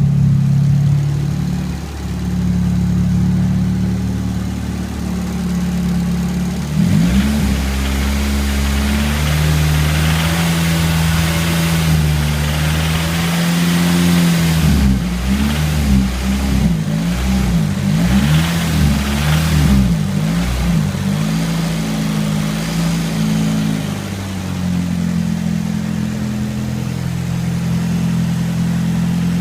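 Nissan SR20DET turbocharged four-cylinder engine idling, revved about seven seconds in, then blipped up and down several times in quick succession before settling back to idle. It has a rattling, knocking noise, the fault the owner is trying to show.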